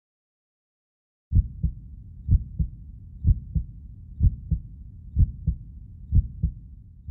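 A heartbeat: paired lub-dub thumps about once a second over a faint low hum, starting about a second in.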